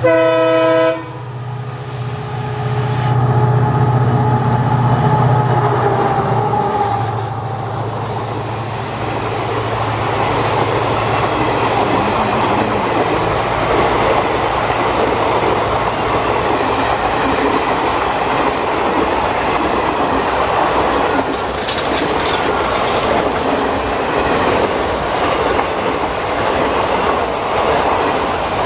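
WDP-4D diesel locomotive sounding a horn blast of about a second, then its engine drone as it passes at speed without stopping. The drone fades after about seven seconds, leaving the express's coaches rolling by, wheels clattering over the rail joints.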